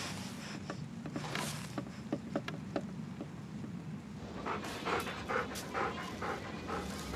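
A dog panting in short quick breaths, plainest in the second half, with scattered faint ticks before it.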